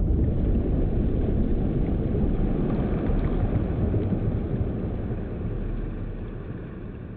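Slowed-down 12-gauge shotgun blast: a deep, drawn-out rumble that fades away slowly.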